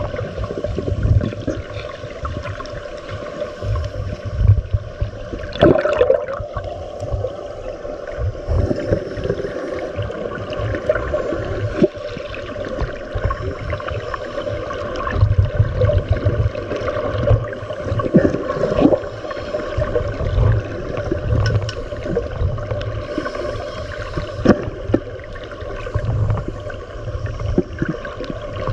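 Muffled underwater noise recorded through a submerged camera's housing, with scuba regulator exhaust bubbles gurgling in low bursts every few seconds and scattered sharp clicks.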